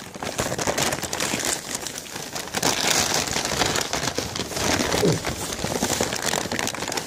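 Brown paper bag crinkling and rustling as it is handled close to the microphone.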